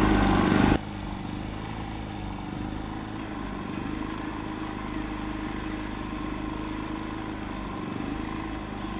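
A motor vehicle's engine running steadily. About a second in the sound drops abruptly to a quieter steady hum with a few faint held tones.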